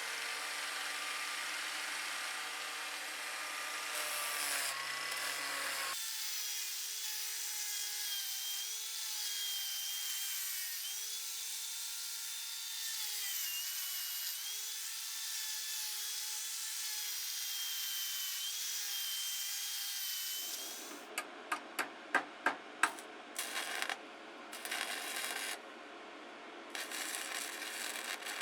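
Electric power tool running and grinding, its motor whine wavering and dipping as it is pressed into the work. About three quarters of the way in it gives way to a series of sharp clicks and knocks.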